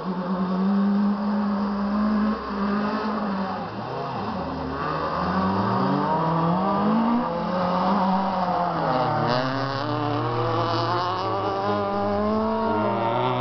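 Rally car engine revved hard on a dirt course. Its pitch climbs and drops again and again as the driver goes up and down the gears and lifts for the bends.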